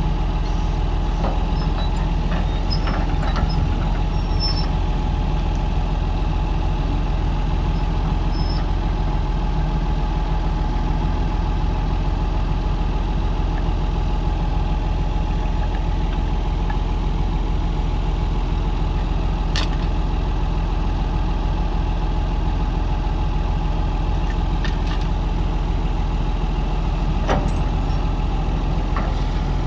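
Heavy diesel engine running steadily at an even speed, with a few brief clicks over it.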